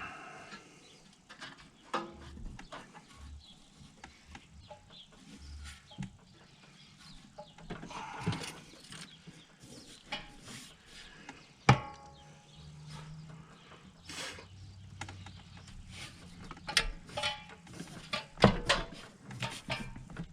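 Scattered clinks, clicks and knocks of hand tools and metal parts being handled during carburetor work on a snowmobile engine, with a sharp knock about twelve seconds in and another cluster near the end.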